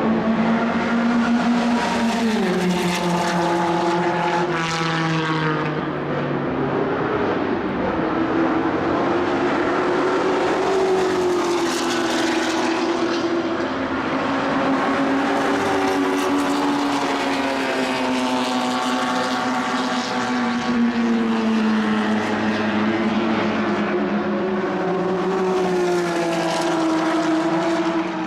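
1960s racing car engines running hard during track practice, their pitch rising and falling with the revs, with more than one engine note overlapping at times.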